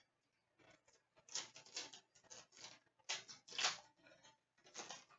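Trading cards being handled and flicked through by hand: a run of short, scratchy card-on-card rustles, several a second.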